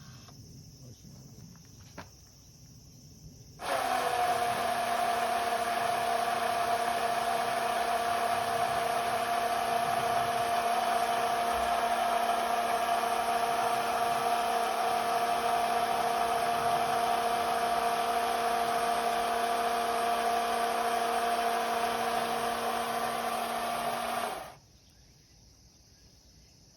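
Electrified chainsaw driver, a power-line construction tool, running its electric motor at a steady speed with an even whine. It starts suddenly about four seconds in, runs for about twenty seconds and stops abruptly.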